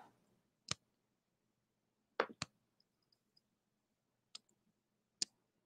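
A handful of sharp single clicks from computer input at a desk, about five spread over several seconds, two in quick succession a little past two seconds in, with near quiet between them, made while logging into an email account.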